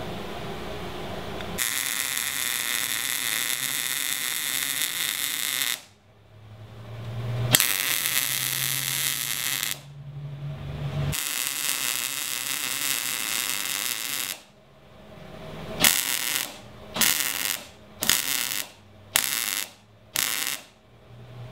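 MIG welder arc crackling and hissing as a 1/4-inch steel plate plug is welded into a hole in an axle truss. It runs in three steady passes of a few seconds each, then five short tack-like bursts about a second apart near the end.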